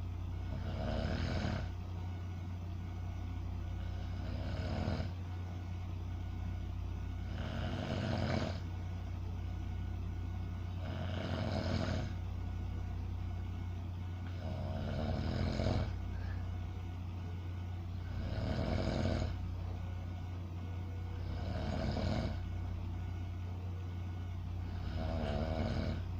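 A sleeping person snoring in a slow, even rhythm, one snore about every three and a half seconds, eight in all. A steady low hum runs underneath.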